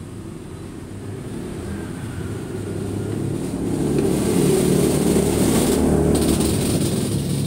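A motor vehicle driving past, its low engine and road rumble swelling to a peak a little past halfway and then fading away.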